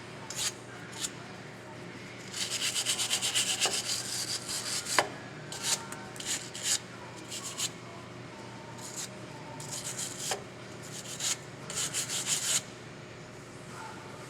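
Metal surface on a truck's steering knuckle being scrubbed clean by hand around the ball joint, in quick back-and-forth strokes that come in runs, with a sharp tick about five seconds in. This is cleaning the seat for a ball joint press.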